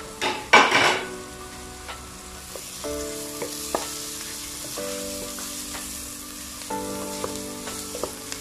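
Chopped onions with crushed ginger, garlic and green chillies sizzling in hot oil in a nonstick pan as a wooden spatula stirs them. A loud burst of sizzling comes about half a second in, then steady frying with a few sharp clicks of the spatula against the pan.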